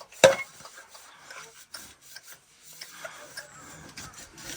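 A sharp knock right at the start, then faint scraping and scattered small clicks, as of something being rubbed or handled against wood.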